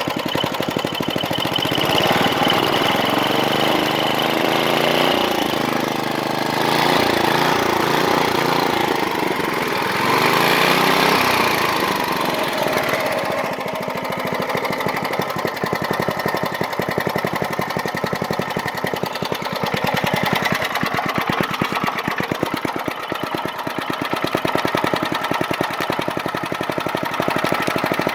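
1995 Briggs & Stratton small engine running, its revs rising and falling over the first dozen seconds before settling into a steadier run.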